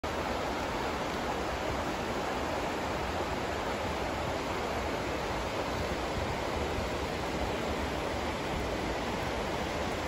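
Shallow river rapids rushing steadily over rocks, a constant, even wash of flowing water.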